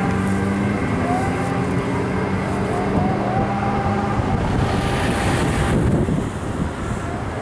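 Vehicle engine held at steady revs during a tyre burnout, its pitch nearly level for about four seconds. A rush of noise follows from about four and a half to six seconds in, and then the engine fades.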